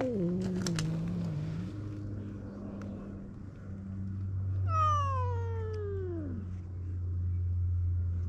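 Stray cats in a face-off: a low, drawn-out growl trailing down in pitch near the start, then, about five seconds in, one long yowl that falls steadily in pitch.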